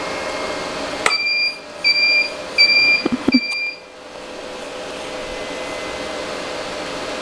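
Four short, evenly spaced electronic beeps of one steady pitch, with a click just before the first, over a steady room hum.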